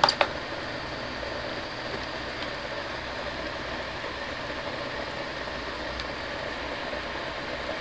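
Steady background hiss of room noise. A couple of small clicks right at the start come from the camcorder's buttons being pressed.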